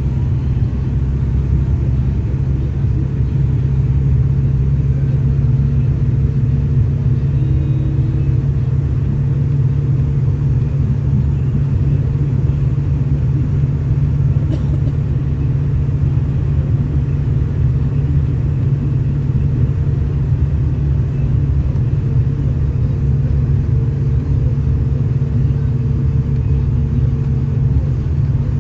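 Diesel engine of a Volare V9L microbus on an Agrale chassis running at a steady speed under way, heard from inside the passenger cabin as a loud, even low rumble with a steady engine hum that does not rise or fall.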